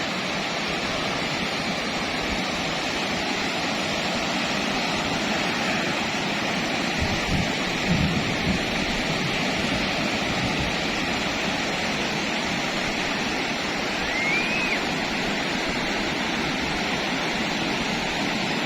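Sea surf breaking and washing onto a beach, a steady hiss of waves. One short high chirp sounds about two-thirds of the way through.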